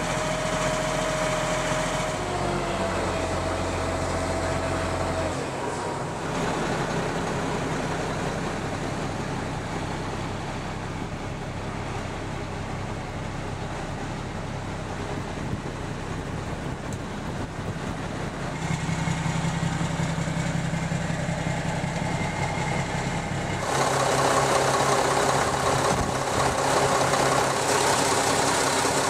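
2004 Mack Granite roll-off truck's 335 hp Mack diesel engine idling steadily. Its sound changes abruptly several times between shots and is louder over the last few seconds.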